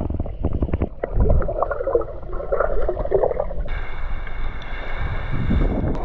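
Muffled water sloshing and bubbling heard from an action camera held underwater. A little over halfway through, the camera comes out of the water and the sound changes abruptly to open-air water splashing.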